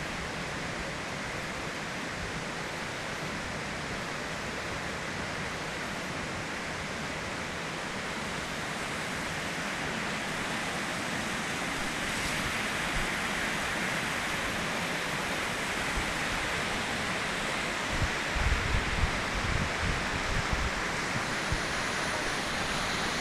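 Steady rushing of falling and running water, swelling slowly louder. A few short low bumps come near the end.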